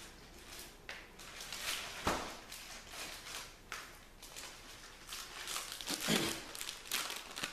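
Scattered rustles, clicks and knocks of hands working in a kitchen, with a sharp knock about two seconds in and a louder rustle about six seconds in as a hand reaches toward the pan.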